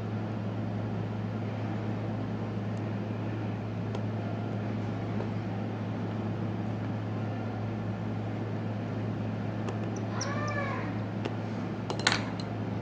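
A cat meows once, briefly, about ten seconds in, over a steady low hum. Near the end there is a sharp click and clatter, the loudest sound.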